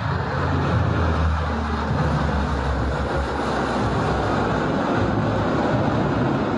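Fighter jet flying by, with loud, steady jet engine noise.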